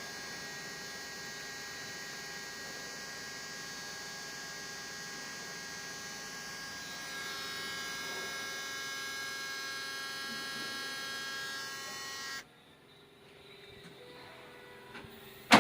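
Electric fuel priming pump on a Caterpillar 950H wheel loader running with a steady whine, getting a little louder about seven seconds in and cutting off suddenly about twelve seconds in.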